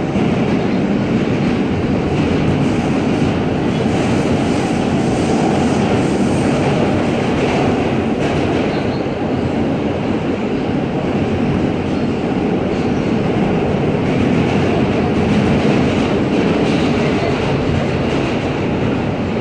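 Inside an R160A (Alstom) New York subway car running between stations: a steady, even rumble of the wheels on the rails and the car's running gear, with no change in speed.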